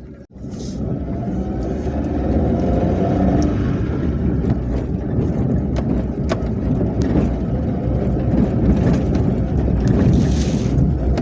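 A vehicle running steadily on the move, engine and road rumble together, with a short dropout just after the start.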